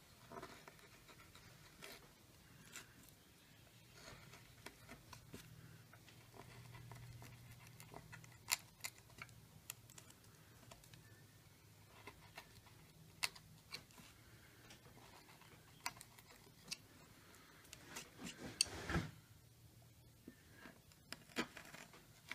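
Carving gouge hand-pushed through wood, making quiet paring cuts with scattered sharp clicks and ticks as the edge bites and chips break away. A short run of louder clicks comes near the end.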